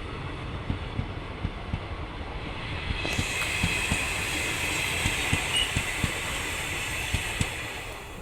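A train running past, its wheels clacking over the rail joints in a quick, uneven rhythm. A hissing rush swells about three seconds in and eases off near the end.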